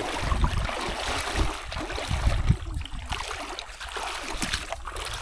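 Shallow stream running: a steady rush of water with irregular low rumbles underneath.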